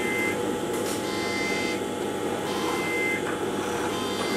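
Industrial overlock sewing machine running steadily, with a high whine that cuts in and out every second or so.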